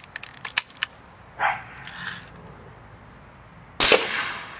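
Homemade .50-caliber compressed-air QEV cannon firing once near the end: a single sharp blast with a short decaying tail. Before it come a few light clicks and a couple of short scrapes as the gun is readied.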